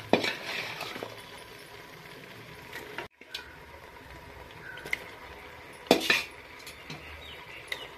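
Metal spoon clinking and scraping against an aluminium pressure cooker as marinated chicken pieces are added to the masala. There are a few sharp clinks, the loudest about six seconds in.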